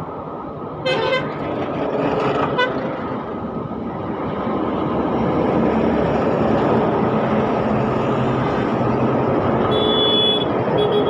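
Heavy trucks and other traffic passing on a highway: a steady rumble of engines and tyres that grows louder after a few seconds. A truck horn blasts briefly about a second in, with a shorter toot at about two and a half seconds, and a higher horn beeps twice near the end.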